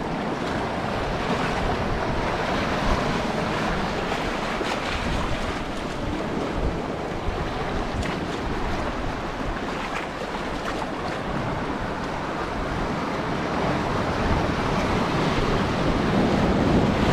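Shallow sea surf washing and foaming around shore rocks, a steady rushing of water that swells a little near the end, with wind buffeting the microphone.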